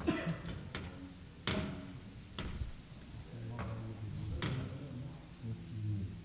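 Irregular knocks and clicks from a padded chair and a small wooden stand being shifted and set down, about half a dozen, the loudest about one and a half seconds in, over a low hum.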